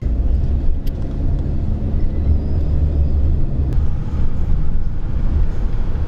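Loud low rumble that rises and falls unevenly, with a couple of faint clicks.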